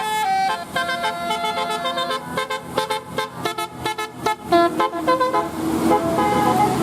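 Bus 'telolet basuri' musical air horn playing a tune: held notes that step in pitch, then a run of short, quick toots in the middle, giving way to a lower held tone near the end.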